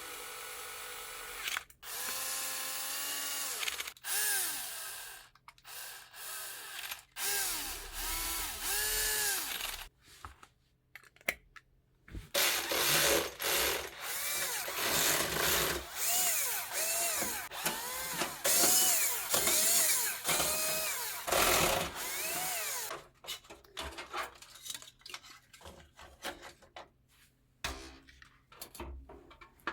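Cordless electric screwdriver driving screws: its motor whirs up and winds down in many short bursts, each a brief rising and falling whine. Near the end the whirring stops, leaving scattered clicks and handling noise.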